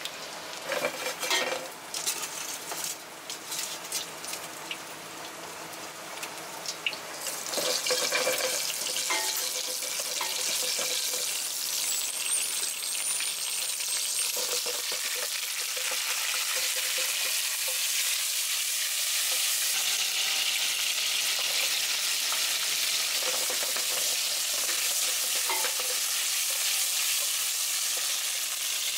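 Hot oil sizzling in a frying pan. It starts gently around frying garlic and dried chilies, with a few clinks and knocks, then jumps to a loud, steady sizzle about seven seconds in as whole baby crabs fry and are turned with tongs.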